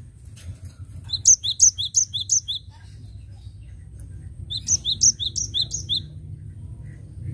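Cinereous tit (gelatik batu) singing: two bursts of its ringing repeated note, about five quick rising notes each, the second burst a couple of seconds after the first.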